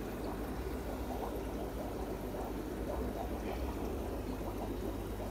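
Aquarium water bubbling and trickling steadily over a low, steady hum.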